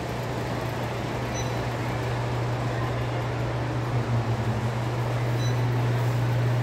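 A steady low hum with an even hiss behind it, like a building's ventilation or air-handling system running.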